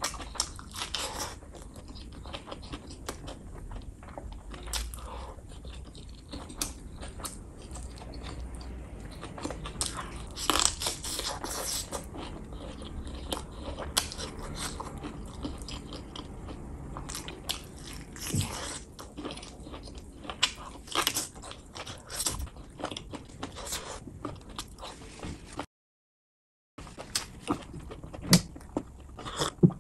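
Wet chewing and biting of chicken gizzard, liver and rice eaten by hand, with many short sharp mouth clicks and smacks. The sound drops out completely for about a second near the end.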